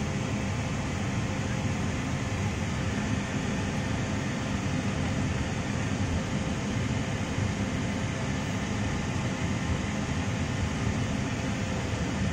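Steady hum and rush of air in an Airbus A320 cockpit on the ground, with the APU running and its bleed air feeding the air conditioning. A few faint steady tones sit under the even noise.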